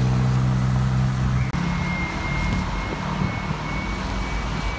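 Bus engine running with a steady low hum that drops abruptly about a second and a half in. After that a rougher rumble continues with a faint steady high whine.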